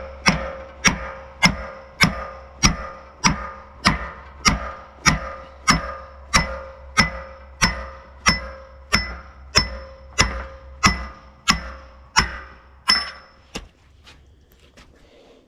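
A heavy hammer or maul striking steel in steady, even blows, just under two a second, each with a ringing metallic tone; the blows stop near the end.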